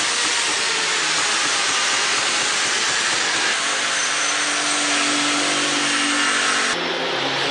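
Steady machinery noise in a workshop: a loud, even hiss, with a low hum joining about halfway through. The sound changes abruptly near the end.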